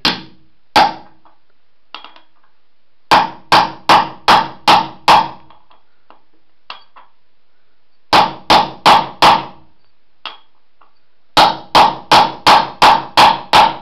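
Claw hammer striking a socket that drives a ball bearing's outer race into an aluminium go-kart rim: two blows, then three quick runs of about six sharp metallic blows each, roughly three a second, with a brief ring after each blow.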